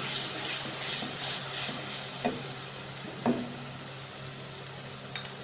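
Onion-tomato masala sizzling in oil in an aluminium karahi, the sizzle dying down with water just added. A wooden spoon stirs it and knocks twice against the pan, about two and three seconds in.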